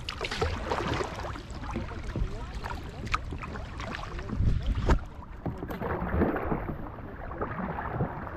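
Kayak paddling in calm water: the paddle blades dip and splash with each stroke and water drips off them, with a few sharp clicks.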